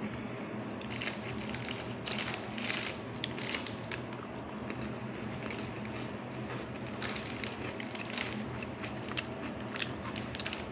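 Oreo cookies being bitten and chewed close to the microphone: irregular bursts of crisp crunching, busy at first, then a quieter stretch of a few seconds, then more crunching.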